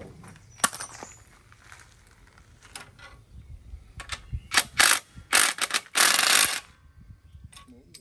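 Cordless drill-driver with a socket running a bolt tight on a steel trailer bracket: several short bursts, then one longer run of about a second and a half, after a few sharp metal clicks of tools against the bracket.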